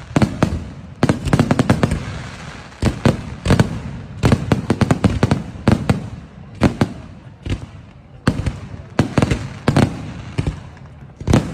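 Fireworks going off in quick irregular clusters: many sharp cracks and bangs, each followed by a short echoing tail.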